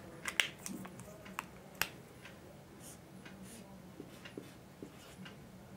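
A few sharp clicks as a whiteboard marker is handled and uncapped, then fainter ticks and taps of the marker drawing short strokes on a whiteboard.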